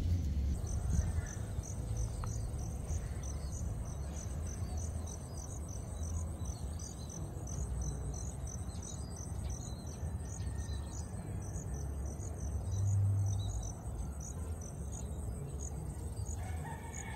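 Insects chirping: a steady high trill, with a high chirp pulsing about twice a second, over a low rumble.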